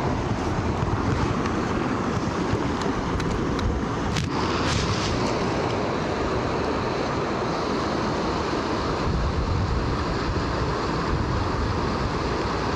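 Steady rush of a rocky river running over riffles and around boulders, with wind buffeting the microphone.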